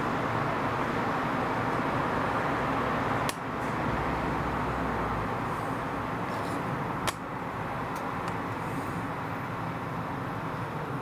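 Boeing 767-300 freighter on final approach, heard as steady, rushing jet noise. Two sharp clicks break in about three and seven seconds in.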